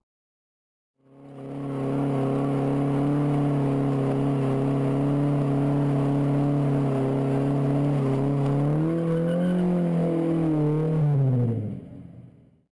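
Car engine held at steady high revs during a burnout. Near the end the revs rise a little, then drop away as the sound fades out.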